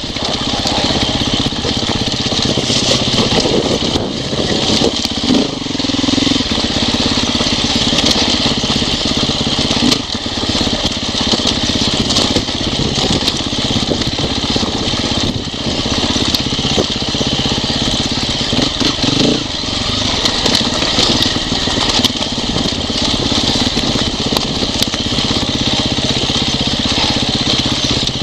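Off-road motorcycle engine running under way, heard close up from a camera on the bike. The engine note shifts briefly about five seconds in and again near nineteen seconds as the throttle changes.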